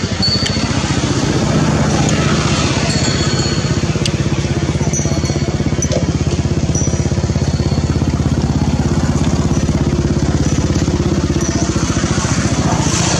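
A small engine running steadily at idle, with a fast, even throb.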